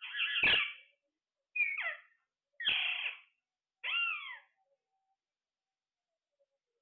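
A parrot giving four harsh calls in a row, each about half a second long and sliding down in pitch, then falling quiet.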